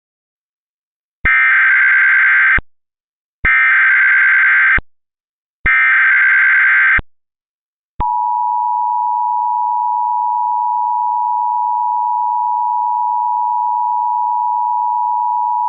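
Emergency Alert System tones: three bursts of the SAME digital data header, each about a second and a half long with short gaps between them, then from about eight seconds in the steady two-tone EAS attention signal.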